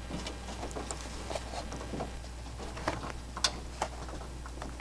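Scattered light metallic ticks and clicks, with a few sharper taps past the middle, as a steel export brace is worked sideways onto the shock-tower studs with a drift punch. A steady low hum lies underneath.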